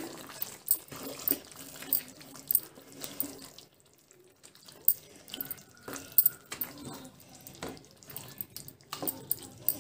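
Spatula stirring a wet chicken and gongura curry in a metal kadai: squelching of the saucy mix with repeated scrapes and knocks of the spatula against the pan, pausing briefly near the middle.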